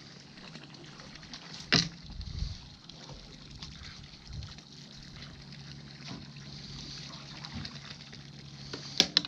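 Water sloshing against a small boat's hull over a steady low hum, with a sharp knock about two seconds in and two more close together near the end.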